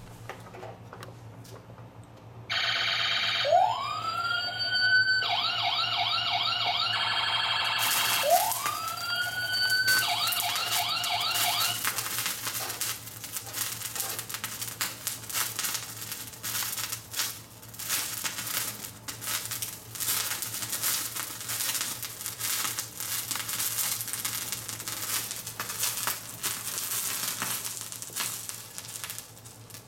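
A toy fire truck's electronic siren sound effect, starting a few seconds in: two rising wails, each followed by a fast warble, ending about twelve seconds in. The toy's battery water pump then runs with a steady hiss as it shoots a thin jet of water.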